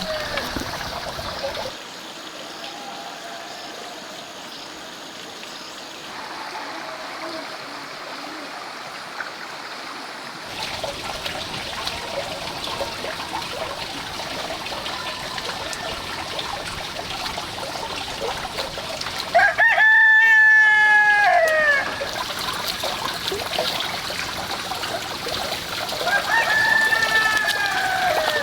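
Rooster crowing: one long, loud crow held on a steady pitch that drops at its end, about two-thirds of the way through, and another crow near the end, over a steady background hiss.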